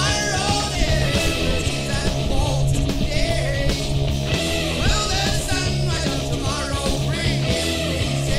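Background music: a rock song with singing and a steady bass line.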